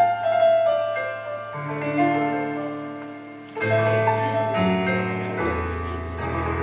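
Stage keyboard playing slow piano-voiced chords over sustained low bass notes, the introduction to a song. A new chord is struck about three and a half seconds in.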